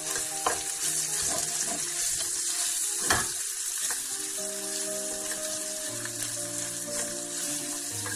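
Sausage meat sizzling steadily as it fries in olive oil and garlic in a steel wok, with the spatula scraping and knocking against the pan now and then; the loudest knock comes about three seconds in.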